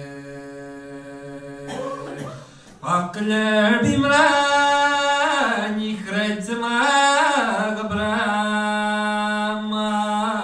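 A man singing unaccompanied in Irish. A long, quieter held note gives way to a brief dip for breath, then louder phrases whose notes rise and fall with ornamented turns.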